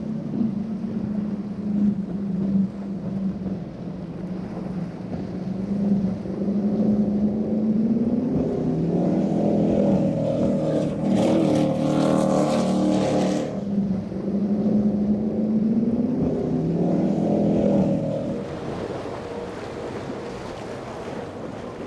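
Cigarette high-performance powerboat's engines running at speed, the pitch rising and falling, loudest and brightest as the boat passes close about eleven to fourteen seconds in. Near the end the engine note falls away to wind and waves.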